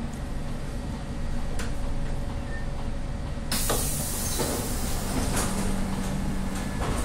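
Siemens C651 train's passenger doors opening: a sudden loud hiss about halfway through, followed by a low steady hum as the doors slide apart. A low rumble from the train runs underneath.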